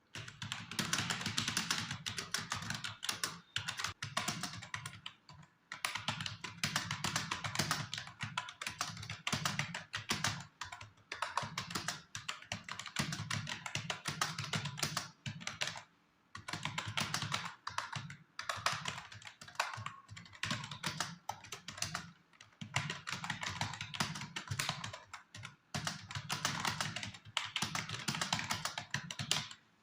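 Fast typing on a computer keyboard: rapid streams of key clicks at about 55 words per minute, in runs of several seconds broken by short pauses.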